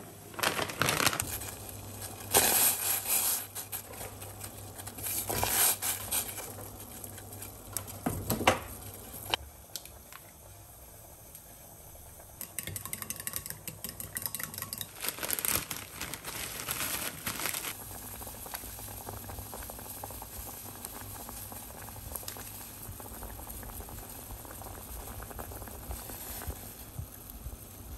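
A plastic bag of frozen gyoza crinkling as it is handled, in loud bursts. Then chopsticks rapidly beat egg against a ceramic bowl, and after that dumpling soup boils steadily in a pot.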